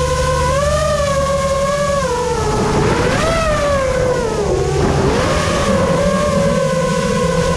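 Drift cars sliding through a corner, engines held at high revs with screeching tyres. One sustained, wavering note rises about three seconds in, dips, then settles, over a low rumble.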